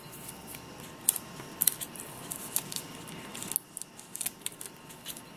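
Scissors snipping card stock: a series of short, separate cuts and blade clicks while trimming the edge of a card piece.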